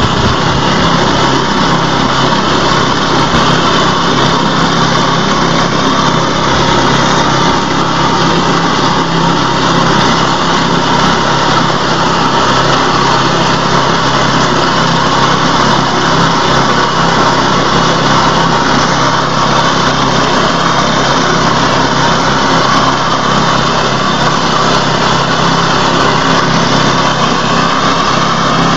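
Engine of a wheat and rice reaper machine running steadily at a constant speed.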